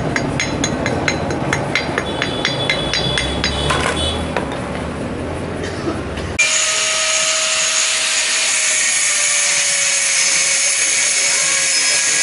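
A hammer striking a welded steel plate, about three blows a second, for roughly four seconds. About six seconds in the sound changes abruptly to a small angle grinder running against a steel pipe: a steady hiss with a single whine that sinks slowly in pitch.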